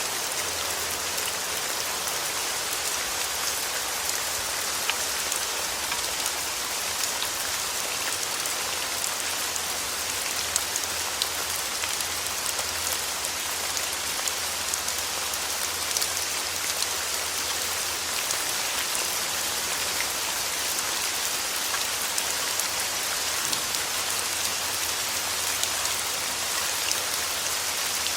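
Steady rain falling on a surface, an even hiss scattered with many small sharp drop ticks.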